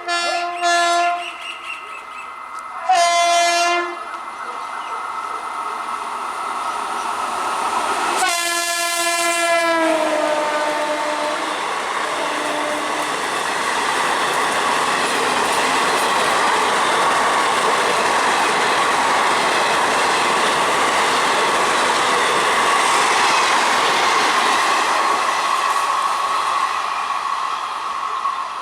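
An Indian Railways express train's electric locomotive sounding its multi-tone horn: short blasts in the first four seconds, then a longer blast about eight seconds in whose pitch drops as it ends. The train then runs through the station at speed without stopping, and the steady noise of its coaches passing lasts until it fades near the end.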